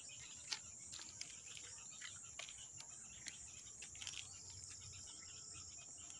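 Steady high-pitched drone of an insect chorus, with a few short clicks and smacks from chewing close to the microphone, one louder about half a second in.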